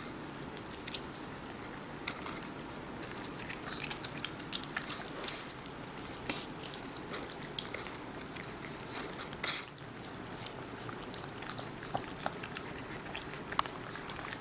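A small dog and a kitten biting and chewing a watermelon slice held out by hand: many short, irregular bites and chews.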